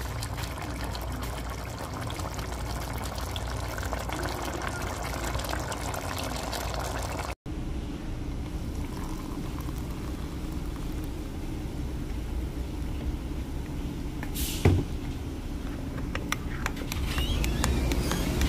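A pot of curry chicken bubbling in its gravy. Then hot water pouring into a ceramic mug of coffee, one sharp knock, and near the end a spoon stirring with small clinks against the mug.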